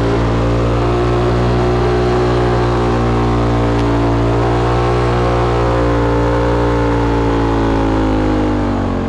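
Car engine running steadily, its pitch drifting slightly up and down, starting to fade out near the end.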